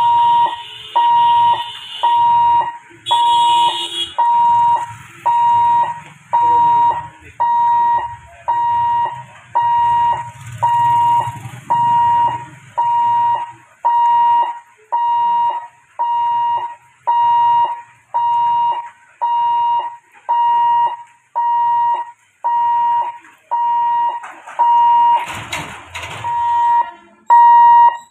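Level-crossing warning buzzer beeping about once a second, a steady single-pitched electronic tone that sounds while the gate is closed for an approaching train. A brief rush of noise cuts in about 25 seconds in.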